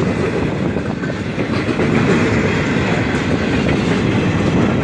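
Empty intermodal well cars of a Florida East Coast Railway freight train rolling past, their wheels making a steady, loud rumbling noise on the rails.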